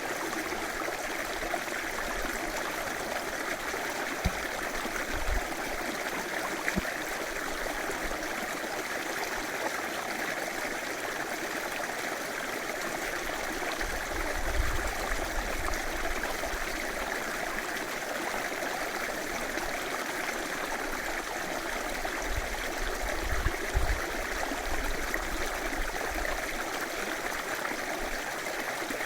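A river running steadily, a constant rush of flowing water, with a few brief low thumps here and there.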